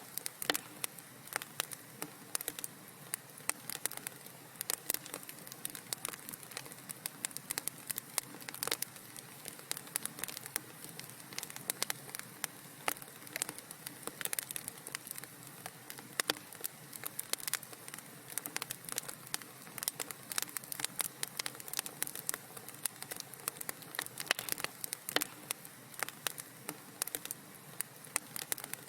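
Wood fire crackling in a fireplace: a continuous stream of small, irregular pops and snaps over a soft hiss.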